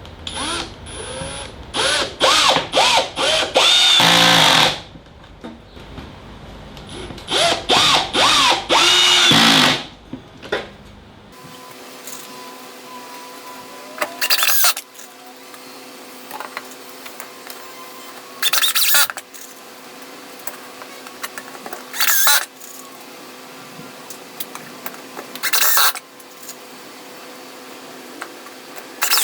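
A Milwaukee cordless drill drives pocket-hole screws into the plywood drawer sides, running in repeated trigger bursts whose motor pitch rises and falls. After about eleven seconds it runs in five shorter single bursts a few seconds apart.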